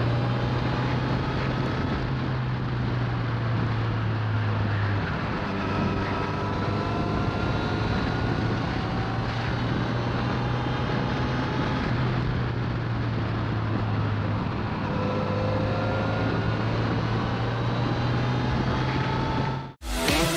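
Motorcycle engine running at a steady cruise with wind and road noise. The sound cuts off abruptly near the end.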